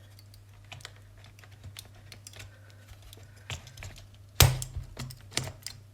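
Small plastic clicks and taps from handling a smart plug and power strip, with one sharp, loud click about four and a half seconds in, over a steady low hum.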